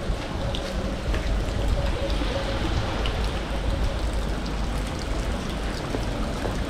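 Rain falling on a wet cobblestone street: a steady hiss with scattered drop ticks over a low rumble.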